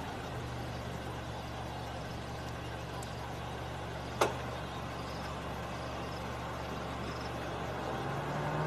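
Idling vehicle engine with a steady low hum and a single sharp click about four seconds in; near the end the engine note rises a little as the revs pick up.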